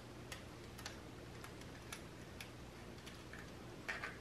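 Faint, evenly spaced light clicks, about two a second, as a small Phillips screwdriver turns and loosens the screw on a toy lightsaber's plastic battery compartment, with a few slightly louder clicks near the end.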